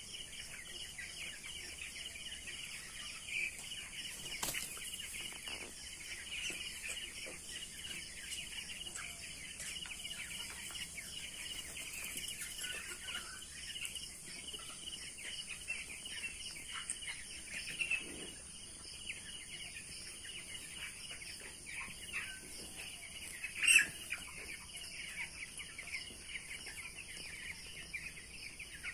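A large flock of young broiler chickens calling all at once in a dense, continuous chatter of high, short calls, with one louder sharp sound about three-quarters of the way through.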